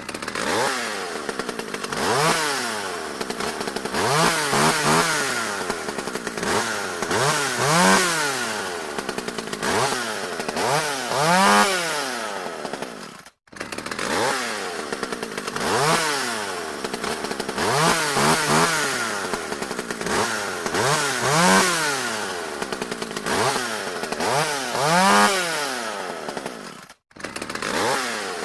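Two-stroke chainsaw engine being revved again and again, each rev a rising then falling pitch before it drops back low, about one rev every two to three seconds. The sound cuts out completely for a moment twice, about halfway through and near the end.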